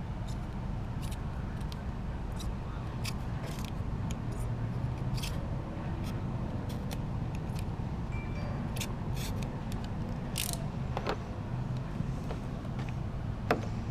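Small sharp clicks and scrapes of hand tools cutting through the double-sided adhesive tape behind a truck emblem, over a steady low hum.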